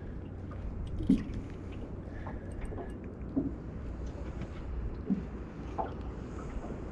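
Low steady rumble of wind and water around a small fishing boat, with a few scattered knocks and handling sounds, the loudest about a second in.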